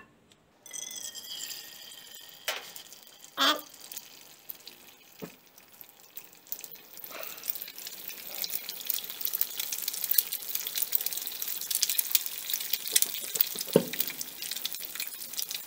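A whole egg frying in hot oil in a small nonstick pan: a hissing sizzle begins as the egg meets the oil and builds into a denser spitting crackle about halfway through. A few soft knocks come in the first few seconds.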